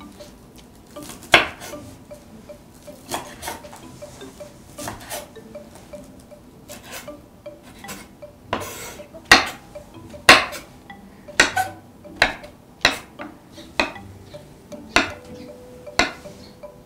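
Kitchen knife chopping on a wooden cutting board, cutting wild chives, shiitake mushrooms and tofu. Irregular sharp knocks of the blade against the board come about once a second, closer together in the second half.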